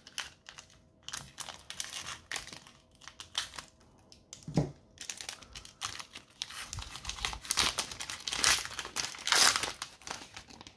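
Foil wrapper of a trading-card pack crinkling as it is handled and torn open, in irregular crackles that grow louder in the last few seconds, with a soft knock about halfway through.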